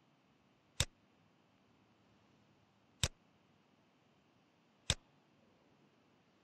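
Three single sharp clicks of a computer mouse, spaced about two seconds apart, over faint room hiss.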